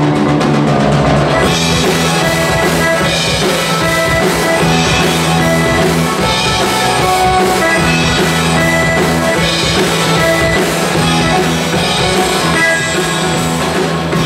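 Live band playing an instrumental intro: a drum kit keeps a steady beat under accordion and guitars holding sustained chords.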